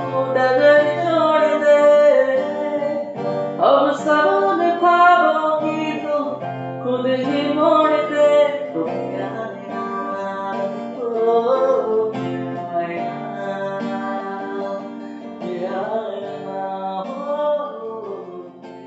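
A man singing to a strummed acoustic guitar; the singer says his voice is affected by a cough. The music fades out near the end.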